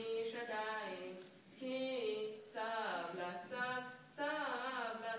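A bar mitzvah boy's solo voice chanting the scripture reading to its traditional melody. He sings phrases of held and sliding notes, with short breaks between them.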